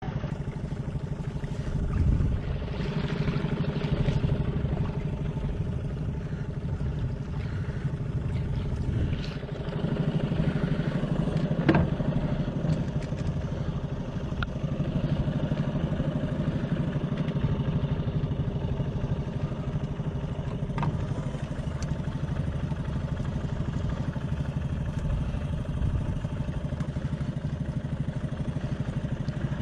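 A boat motor running steadily, with a couple of brief sharp clicks midway.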